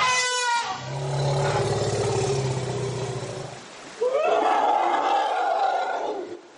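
Elephant calls: a short call falling in pitch, then a low rumble lasting about three seconds, then a louder, higher-pitched call about four seconds in. These are the rumbles and loud calls that elephants use to communicate with one another.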